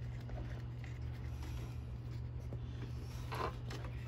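Light rustling, scraping and small clicks of hands twisting and handling headlight wiring behind a plastic headlight bracket, with one louder rustle about three and a half seconds in, over a steady low hum.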